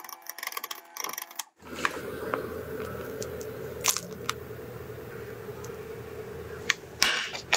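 Matcha cream squeezed from a plastic piping bag into a baked bun: a steady squishing with a few sharp crinkles of the bag and glove, and a louder rustle near the end. Before it comes about a second and a half of clicking and rattling from a hand mixer's beaters in a glass bowl, then a brief silence.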